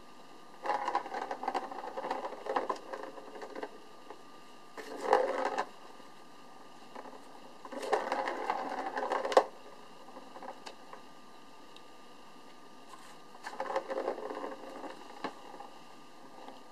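A plastic ball rolling around the track of a circular cat toy as a cat bats it. It makes a rattling rumble in four bursts of one to three seconds.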